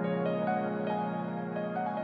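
Background music: soft, slow new-age style with sustained keyboard chords.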